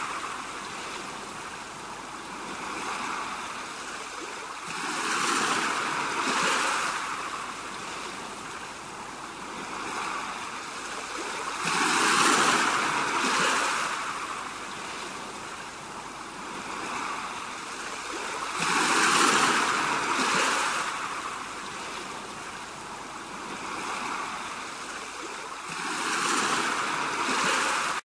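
Sea surf breaking on a rocky shore, surging and falling back in a slow rhythm of about one swell every six to seven seconds.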